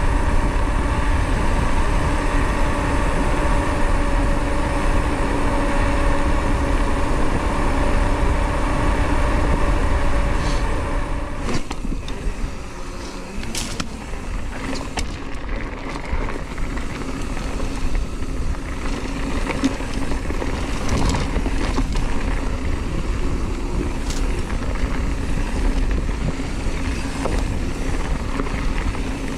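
Hardtail mountain bike riding, recorded on a handlebar GoPro in a foam wind case: a steady tyre hum and rush on asphalt, then, about 11 seconds in, quieter rolling over a dirt trail with scattered knocks and rattles from bumps.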